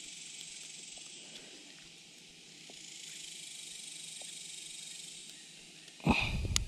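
Steady high-pitched hiss of insects chirring. About six seconds in, a loud low thump lasts about half a second.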